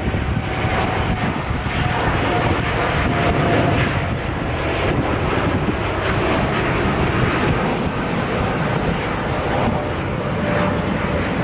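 Jet airliner engines running steadily as the plane comes in to land, a continuous noise with a faint whine over it.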